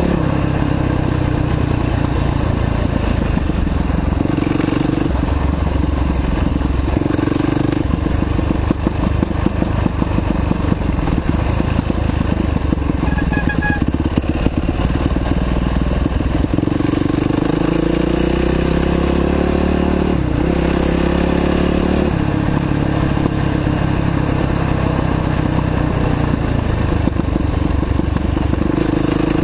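2009 Yamaha YZ450F's single-cylinder four-stroke engine running as the bike is ridden down a dirt road. The engine's pitch steps up and down with the throttle, climbs steadily for a few seconds past the midpoint, then drops sharply. Extra rattling is heard from about eight to fifteen seconds in.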